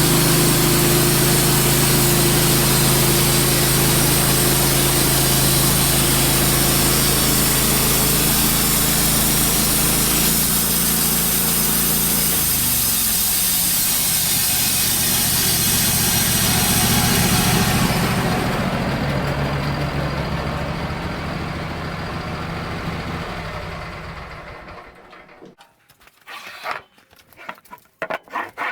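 Wood-Mizer LT15 band sawmill running, its blade cutting through an ash log. The cutting noise drops away after about eighteen seconds, the machine winds down and stops a few seconds later, and a few scattered knocks come near the end.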